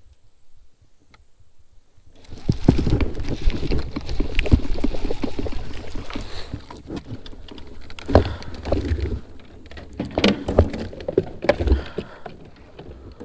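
A hooked fish splashing at the surface beside a kayak as it is reeled in and lifted aboard, with irregular splashes and knocks starting about two seconds in.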